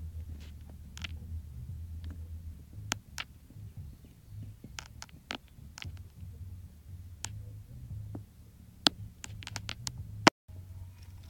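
Handling noise on a handheld camera's microphone: a low steady rumble with scattered sharp clicks and ticks. The sound cuts out completely for a moment a little after ten seconds in.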